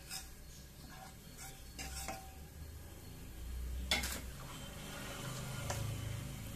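Wooden spatula scraping and tapping a nonstick frying pan as a pat of butter is spread around it, with the melting butter sizzling. A sharper knock comes about four seconds in.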